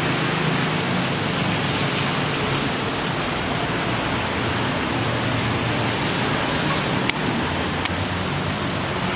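Steady hiss of heavy rain, with the low hum of cars and motorcycles passing on the flooded road underneath. Two light ticks sound about seven and eight seconds in.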